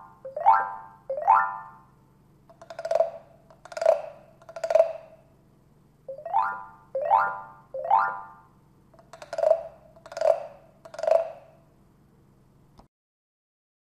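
Percussive sound effects: three short rising pitched calls about a second apart, then three hollow knocks, the whole set played twice. It cuts off suddenly near the end.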